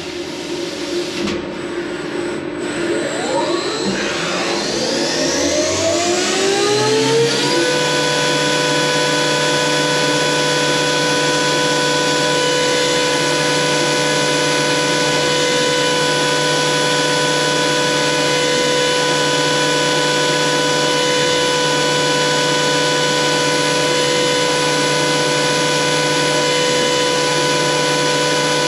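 CNC machining-centre spindle spinning up, its whine rising in pitch for about six seconds, then running steadily at speed with a constant whine.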